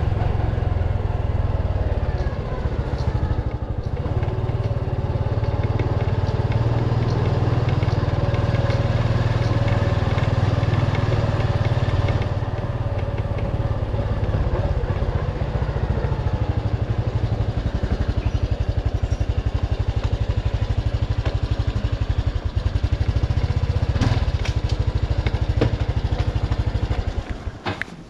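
Motorcycle engine running at a steady low pace as it rides along, dying away about a second before the end as the bike comes to a stop.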